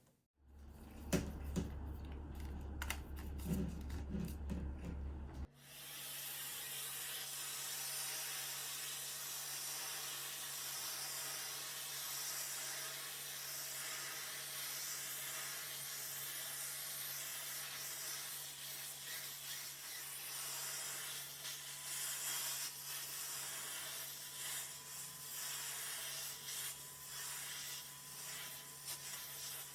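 Light clicks and handling noise over a low hum. About five seconds in, a canister vacuum's steady suction hiss with a low motor hum comes in abruptly and runs on: the Miele C2 Compact Electro+ drawing air through a tool on its hose.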